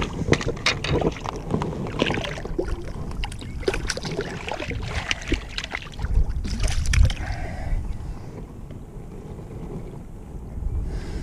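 Water splashing and knocking irregularly, with wind gusts buffeting the microphone about six seconds in.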